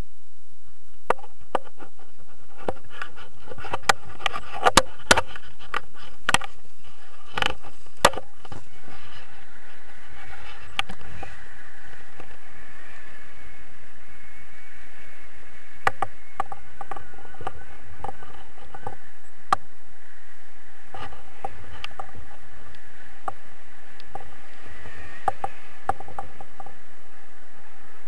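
Steady wind noise on an action camera's microphone during a tandem paraglider launch and flight, with a run of sharp clicks and knocks in the first eight seconds and a few more later.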